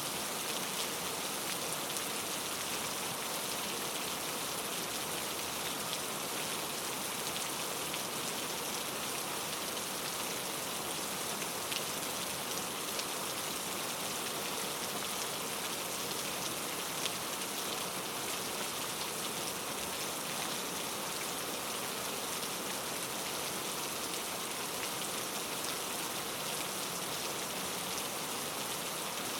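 Steady rain falling, a dense even hiss with occasional individual drops ticking on a surface.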